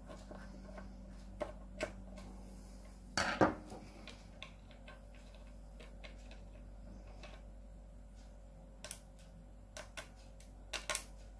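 Scattered small metal clicks and taps of a flat-head screwdriver turning a chrome bridge stud out of its anchor on an Epiphone Les Paul Junior, with a louder clatter about three seconds in and a few more clicks near the end.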